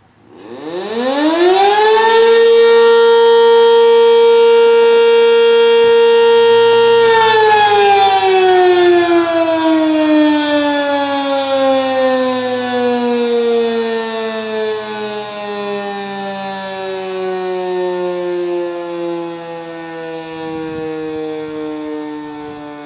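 Sentry 10V electromechanical siren sounding its test: it winds up from nothing to a loud steady tone within about two seconds, holds it for about five seconds, then slowly winds down, its pitch still falling at the end.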